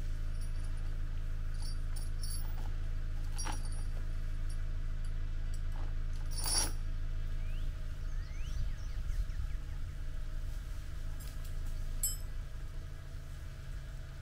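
An engine idling steadily, its low hum turning rougher and uneven about eight seconds in, with a few short sharp knocks over it.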